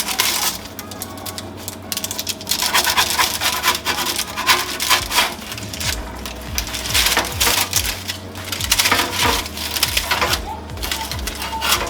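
A knife sawing through a crisp-crusted pastry Wellington, a run of rasping cutting strokes with short pauses between them.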